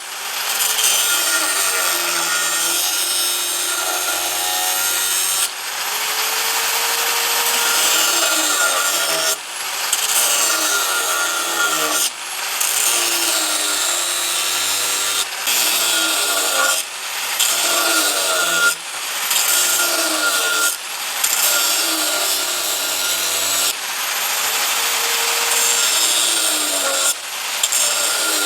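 A tool grinding or rasping steadily against the workpiece, a rough continuous scraping noise. The sound comes in short cut-together stretches of two to four seconds each.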